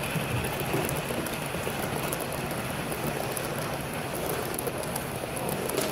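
HO scale model passenger cars rolling past close by on the track: a steady rolling noise of small metal wheels on rail, with faint ticks.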